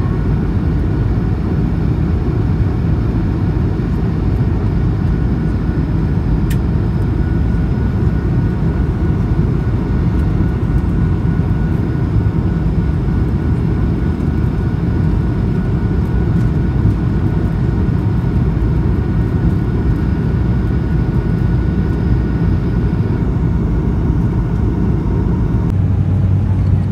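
Steady cabin noise of a jet airliner in flight: a low rumble of engines and airflow with faint steady whining tones above it. Near the end the sound changes abruptly, the whining tones shifting and the low hum growing stronger.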